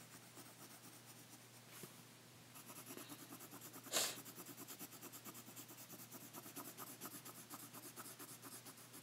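Graphite pencil shading on drawing paper: quick, even back-and-forth scribbling strokes, faint and scratchy, with one brief louder rub about four seconds in.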